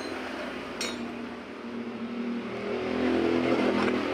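Motorcycle engine running, revving up about three seconds in, with a sharp metallic click about a second in.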